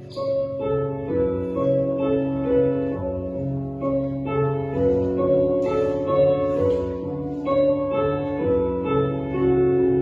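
Instrumental music: a slow melody of held notes over a steady low drone.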